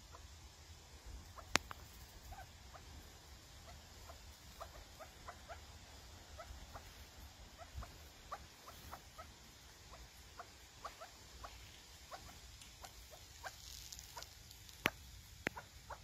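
A flock of chukar partridges giving soft, short calls, scattered irregularly and overlapping. There is a sharp click about one and a half seconds in and two more near the end.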